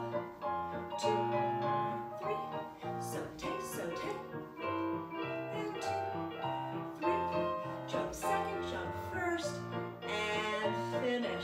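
Piano music playing as ballet class accompaniment for small jumps, with a run of chords and melody notes.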